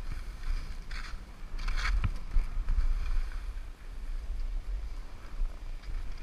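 Skis hissing over soft snow during a descent, with two sharper swishes about one and two seconds in and a dull thump just after, over a steady low wind rumble on the microphone.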